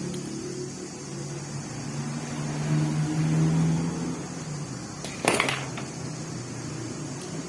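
Electric stand fan's motor running with a steady hum, and a short sharp knock about five seconds in.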